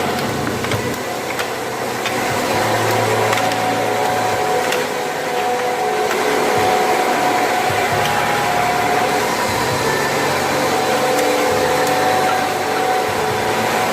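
Rotary monoblock bottle-filling machine with 16 nozzles running steadily: a constant motor and machinery hum with a few steady whining tones, and scattered light clicks.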